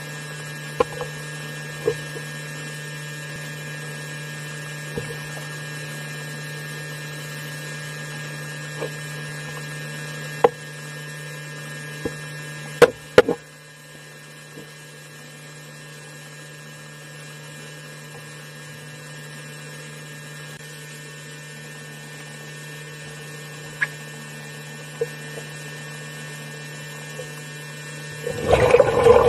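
A steady low hum with many sharp clicks scattered through it; near the end a louder rush of churning water sets in.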